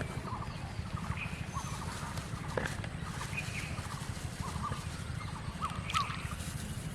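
Birds calling with many short, repeated chirps, over a steady low rumble. Two sharp knocks come about two and a half and six seconds in.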